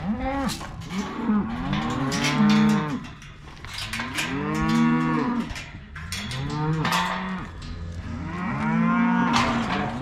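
Cattle mooing: about five long calls that rise and fall in pitch, some overlapping.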